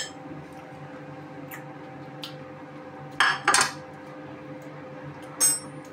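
Fork and plate clinking: a couple of light taps, then two louder clatters about three seconds in and a bright ringing clink near the end, over a faint steady hum.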